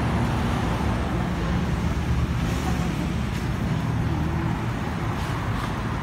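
Steady low rumble of passing road traffic.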